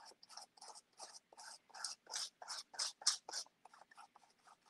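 A small stiff brush scrubbing gelato paint through a stencil onto paper: short scratchy strokes, about three a second, loudest in the middle.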